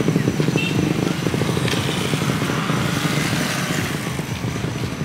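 A motorcycle engine running steadily with a fast, even putter.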